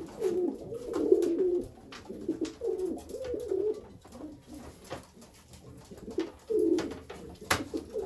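Racing pigeons cooing in the loft, low warbling coos in several bouts with short gaps between them. A few sharp clicks and knocks run through it, with the loudest near the end.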